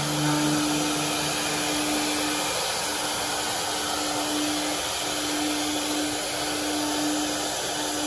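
Four 4.5 kW air-cooled spindles of a four-head CNC router running while carving wood: a steady rushing noise with a steady whining tone through it.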